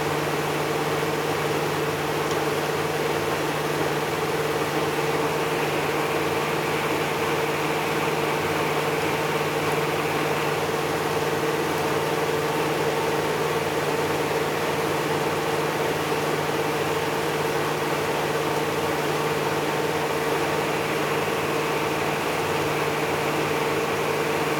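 Panasonic NA-W77FCW1 twin-tub washing machine running its spin-tub rinse, the tub turning while tap water pours in: a steady motor hum over a constant rushing haze.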